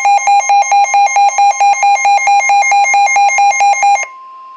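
Weather radio's alert alarm beeping rapidly, about four loud beeps a second, set off by a severe thunderstorm warning. About four seconds in the beeping stops, and a quieter steady tone near 1 kHz follows: the broadcast's warning alarm tone.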